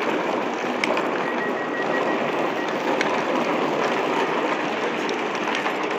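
Station platform noise beside a standing Deutsche Bahn double-deck train with its doors open: a steady rumble and hiss, with a few short clicks and a faint high tone that pulses briefly about a second in.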